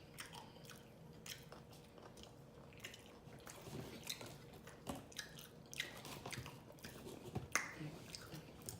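A person chewing food with open-mouth smacking: a string of faint, irregular wet clicks and smacks.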